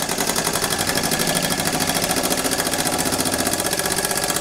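An old English-made model steam roller's live-steam engine running steadily, giving a rapid, even chuffing with steam hiss.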